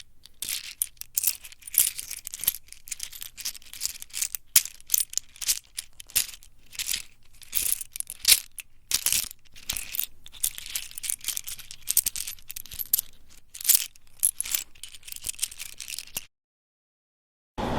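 Irregular, rapid clattering of small hard objects: many sharp clicks and rattles of uneven loudness, stopping suddenly just over a second before the end.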